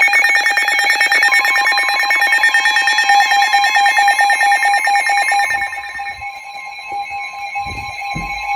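Emergency Alert System two-tone attention signal: a steady, piercing dual tone with a fast beating flutter, announcing an incoming severe weather alert. It drops in level about five and a half seconds in, and a few low thumps sound near the end.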